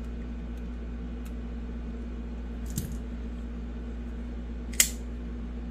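Faint handling of a Cold Steel FM-1 folding knife over a steady low hum. About five seconds in there is one sharp metallic click from the knife's blade mechanism, as the blade is checked for play after the pivot has been tightened.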